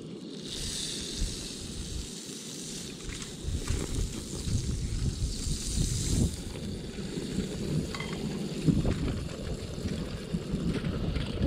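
Wind buffeting the microphone in gusts, growing louder a few seconds in, with a high hiss over the first half.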